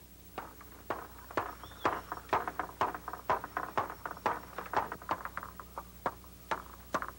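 A series of sharp knocks at a fairly even pace, about two a second, each with a short ring after it.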